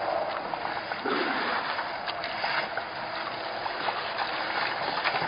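African elephants moving at the edge of a waterhole close to the microphone: a steady splashing and trickling of water with scattered small knocks and rustles.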